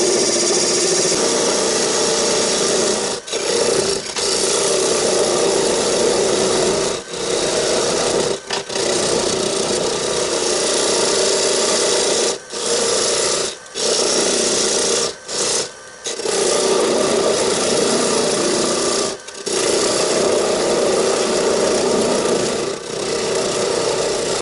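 Turning tool cutting into wood spinning on a lathe: a steady scraping hiss, broken by short gaps about eight times.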